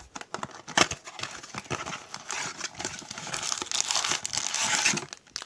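Plastic wrapper of a Bowman baseball card pack crinkling and tearing as it is opened by hand, with a sharp snap about a second in and the crinkling loudest near the end.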